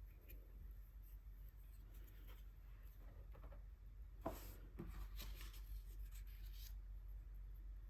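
Soft strokes of a paintbrush laying gouache onto paper, with a couple of light taps a little over four seconds in.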